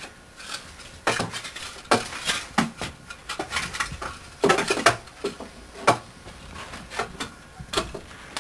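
Loose wooden floorboards being pried up and shifted by hand: irregular knocks, scrapes and clatters of plank against plank.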